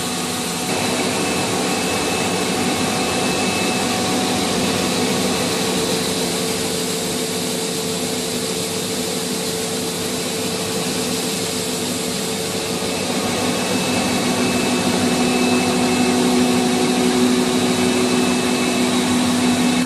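Paper-roll slitter-rewinder running steadily: a continuous machine hum with a few constant tones as its rotary knives slit the paper web into strips and the two rewind shafts wind them up. It grows somewhat louder about two-thirds of the way in.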